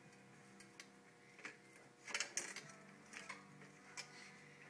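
Faint background music with scattered metallic clicks and knocks from bicycle parts being handled on a repair stand during wheel removal, the loudest a quick cluster about two seconds in.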